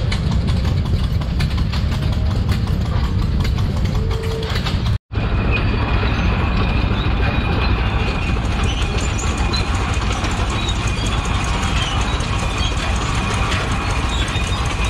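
An antique crawler tractor's engine running as it drives slowly past, with the clatter of its steel tracks, over a steady mechanical din. About five seconds in, the sound cuts briefly and a thin steady whine comes in.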